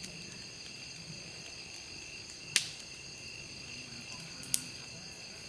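Steady high chorus of night insects such as crickets, with two sharp pops from the wood campfire, about two and a half and four and a half seconds in.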